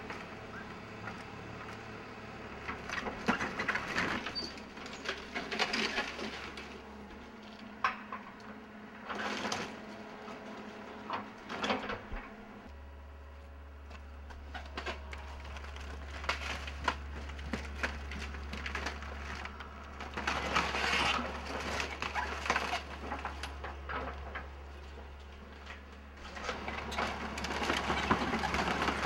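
Excavator tearing into a wood-frame building: irregular cracking and crunching of timber, over the steady low hum of the machine's engine, which grows louder about halfway through.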